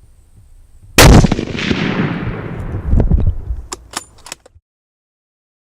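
A single hunting rifle shot, sudden and very loud about a second in, its report rolling away and fading over the next few seconds. A few faint sharp clicks follow, then the sound cuts off abruptly to silence.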